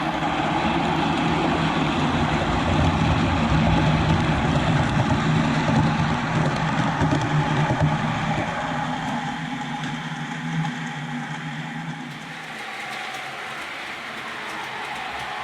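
Sound-fitted OO gauge model of the diesel locomotive 10202 running, its decoder's loudspeaker playing a steady diesel engine sound over the noise of the model's motor and wheels. It gets quieter from about ten seconds in.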